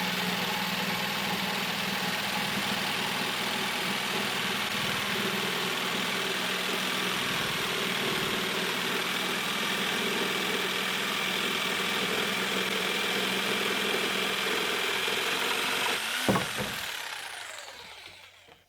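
Bosch PST 800 PEL jigsaw running steadily as it cuts, with a constant motor hum. About sixteen seconds in there is a sharp knock, then the motor is switched off and winds down to quiet.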